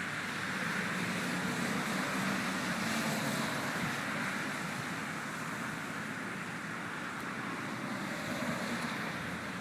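A vehicle engine running steadily, giving a low, even hum.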